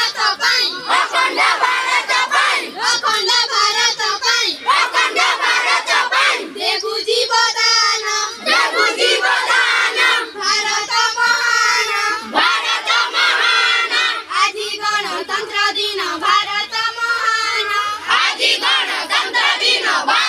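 A crowd of schoolchildren shouting slogans together in loud unison.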